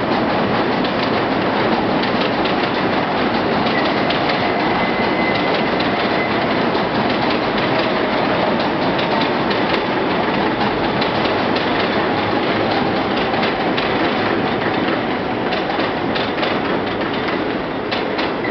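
R160 subway train running on an elevated steel structure: a loud, steady rumble with a faint wheel squeal held for a few seconds early on, and rail-joint clicks coming thicker near the end.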